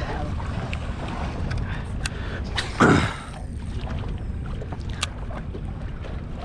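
Steady wind on the microphone and water against a fishing boat's hull, with one brief louder swish about three seconds in and a few light clicks.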